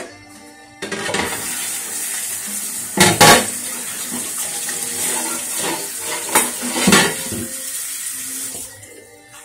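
Kitchen faucet running into the sink, a steady splashing rush that starts about a second in and is shut off near the end. A few louder knocks and clatters come through it, around three seconds and again near seven seconds.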